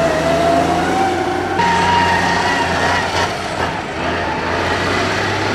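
Race tractor engine running hard with a whine that rises slowly in pitch, then changes abruptly about a second and a half in to another engine with a higher, steadier whine.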